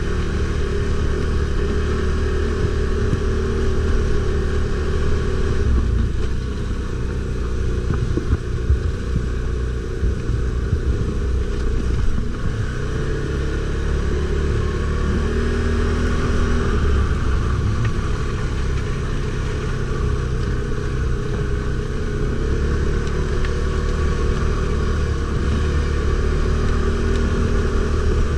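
Stels Guepard 850 ATV engine running under load over rough ground, its pitch rising and falling with the throttle. A few knocks and rattles about eight to nine seconds in.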